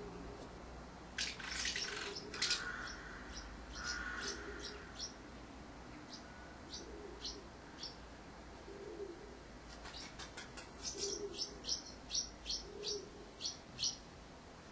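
Common house martins chirping: short, high calls in two lively clusters, one about a second in and another from about ten to fourteen seconds in, with single chirps between.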